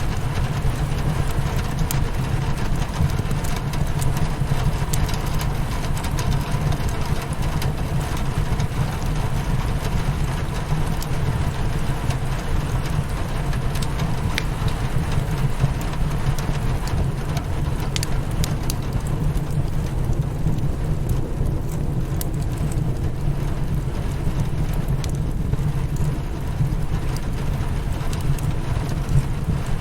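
Rain hitting a window, mixed with a crackling wood fire: a steady, heavy low rush with small sharp pops scattered through it, two clearer ones about two thirds of the way in.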